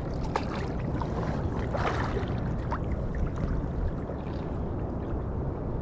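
Small sea waves lapping and sloshing steadily around a rubber inner-tube float, heard from a camera right at the water surface.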